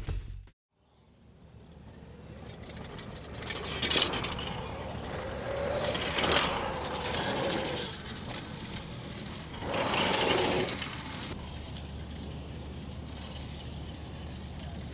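Electric motocross motorcycles passing on a dirt track: noise that swells and fades three times, about four, six and ten seconds in, with a faint whine that rises and falls during the middle pass.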